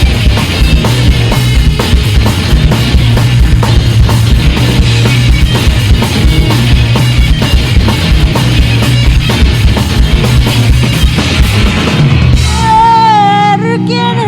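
Rock band playing loud, driving music live on full drum kit with sustained low chords. About twelve and a half seconds in the drums drop out, leaving held chords and a wavering sustained melody line.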